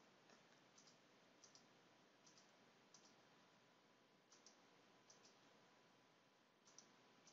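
Faint computer mouse clicks, about eight of them spaced irregularly over several seconds, against low background hiss.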